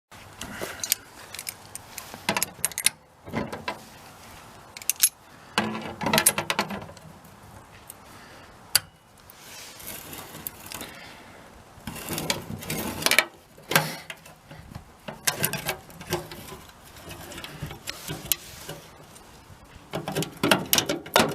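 Hand tools working an old gas door latch loose on a VW bus: irregular metallic clicks, scrapes and short rattles, in bursts with short pauses, until the stubborn latch comes off.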